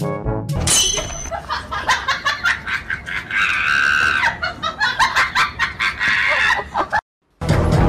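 Laughter in short bursts, with a drawn-out high-pitched shriek about three and a half seconds in; the sound cuts off suddenly about seven seconds in.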